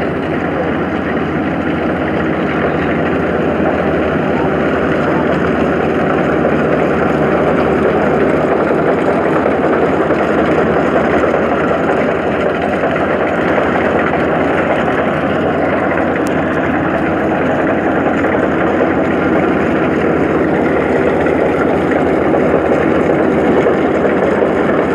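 Kubota DC-35 rice combine harvester running steadily as it cuts and threshes: its diesel engine and threshing drum make a continuous dense mechanical noise, a little louder from about seven seconds in as the machine comes closer.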